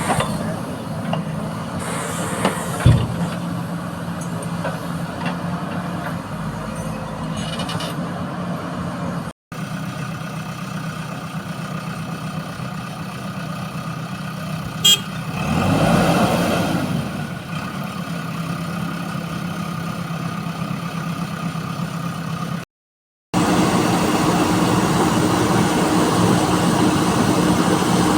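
Heavy diesel engine of earth-moving machinery running steadily at a constant pitch, with a sharp knock about three seconds in and a brief swell in engine sound around the middle. The sound drops out for a moment twice at edits.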